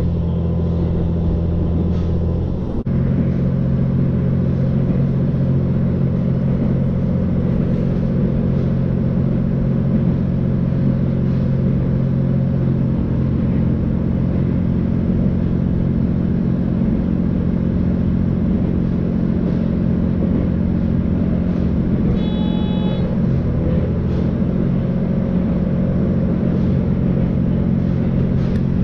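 Steady drone inside a JR Hokkaido H100 diesel-electric railcar under way: its diesel engine and running gear, with the engine note stepping up about three seconds in.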